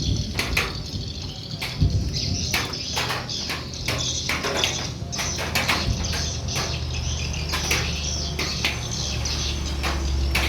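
Swiftlets twittering: many short, sharp chirps in quick irregular succession, with a steady low hum growing underneath in the second half.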